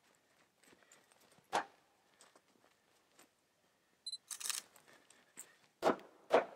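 Sharp wooden knocks: one about a second and a half in, then two in quick succession near the end, as a wooden block is handled and struck, with a brief rattle just before them.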